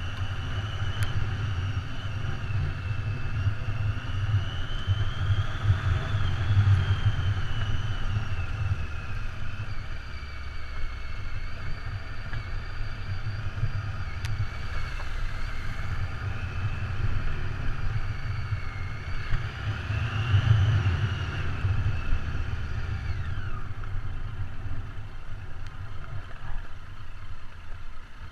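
Triumph Tiger adventure motorcycle's three-cylinder engine running under way on a rough gravel track, with a heavy low rumble. Its pitch rises and falls with the throttle, then drops and quietens near the end as the bike slows to a stop.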